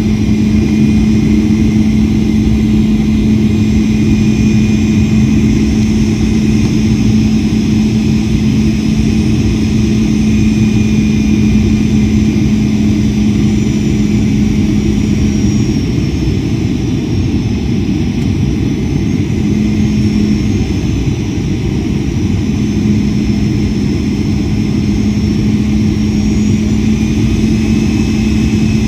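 Boeing 737-800's CFM56 turbofan engine heard from inside the cabin on final approach: a steady low rumble and hum with a high fan whine. Twice in the second half the whine dips in pitch and recovers as the thrust is adjusted.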